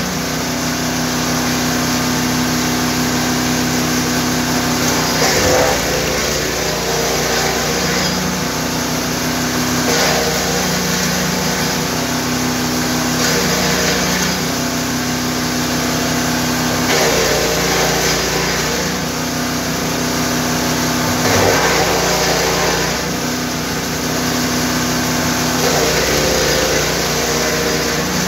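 GTM GTS 900 wood chipper's 9 hp engine running steadily, with a louder crackling burst every four seconds or so as branches are fed in and chipped.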